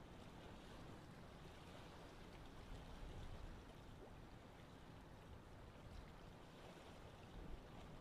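Faint, steady rushing of a waterfall, an even wash of falling water with a low rumble underneath.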